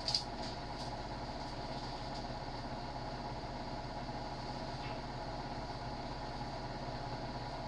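Steady mechanical hum from a running motor or appliance, with a couple of light clicks at the very start.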